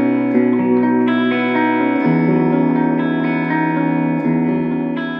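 Electric guitar on its bridge humbucker, played through a Boss Katana Mini amp with delay: a few chords left to ring, changing about a second and two seconds in, the last one dying away near the end.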